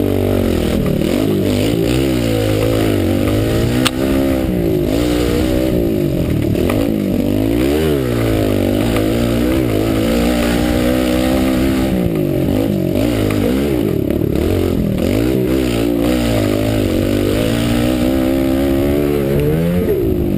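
Off-road motorcycle engine revving up and down over and over as the rider speeds up and slows for the turns, heard from the rider's helmet. There is one sharp click about four seconds in.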